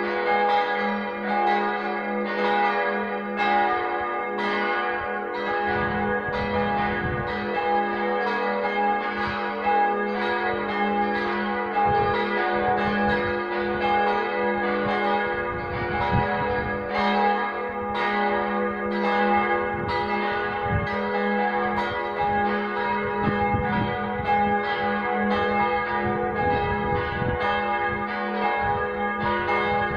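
Partial peal of four church bells swinging together, their strikes overlapping in a continuous clang over a steady low hum.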